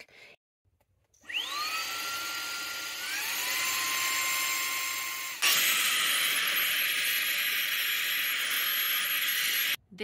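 Owleys cordless handheld car vacuum running: its motor spins up with a rising whine about a second in and steps up in pitch a couple of seconds later. About halfway through a sudden, louder rush of air takes over, and it stops abruptly just before the end.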